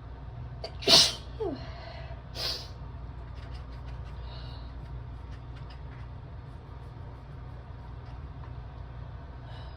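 A person sneezing hard once about a second in, the sneeze ending in a falling voiced tail, then a softer second burst of breath about a second and a half later. Faint clicks follow over a steady low hum.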